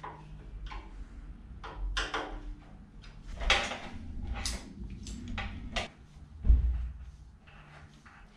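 Handling noise from work on a steel scissor lift: clicks, scrapes and knocks as a cable is worked along the frame by gloved hands, with one heavy thump about six and a half seconds in.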